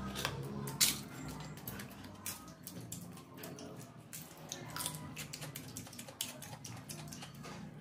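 Bare hands mixing and pressing biryani rice in a steel plate: a run of small wet clicks and scrapes, with one sharper click about a second in.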